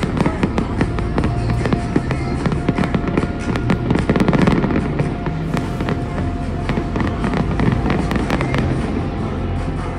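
Fireworks display: a rapid stream of bangs and crackles from aerial shells, thinning out somewhat in the second half, with music playing underneath.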